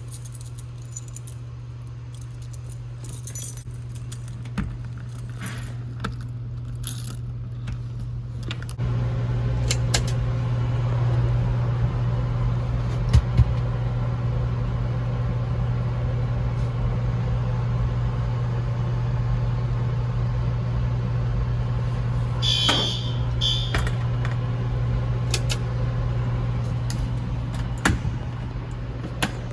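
A steady low mechanical hum, like a motor or engine running, with metallic jangling like keys over it at first. The hum grows louder about nine seconds in and holds steady, with a couple of sharp knocks soon after and a brief rattle later.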